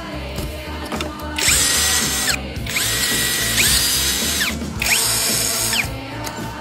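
A power tool runs in four short bursts, each spinning up with a rising whine, holding speed and winding down; the middle two come back to back. Music plays underneath.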